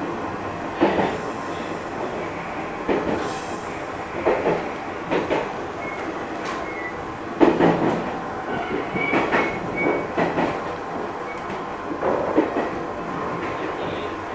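185-series electric train running, heard from its driving cab: a steady rumble of the wheels on the rails with irregular sharp knocks as they pass over rail joints, and a few short high squeaks around the middle.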